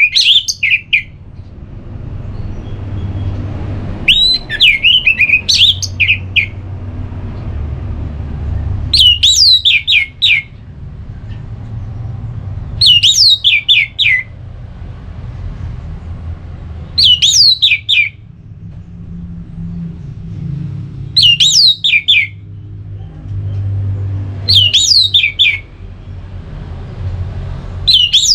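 Orange-headed thrush singing its full, clear 'ngeplong' song: short phrases of quick, falling whistled notes, one about every four seconds, over a steady low rumble.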